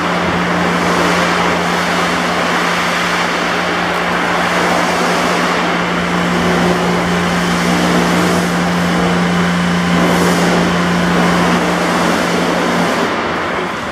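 Loud, steady machine noise with a constant low hum; the hum cuts off near the end while the broader noise carries on.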